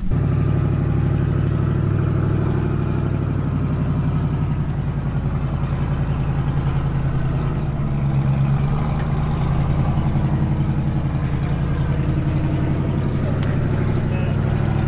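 Engine of a Beetle-bodied rock-crawling buggy running steadily under load as it crawls up a steep slickrock chute, its pitch rising and dipping a little with the throttle.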